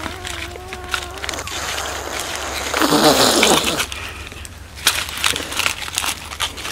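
A roasted chicken being torn apart by hand on a leaf: scattered crackles and snaps of skin and bone, with leaf rustle. A short steady buzz sounds in the first second, and a louder rustling stretch comes about three seconds in.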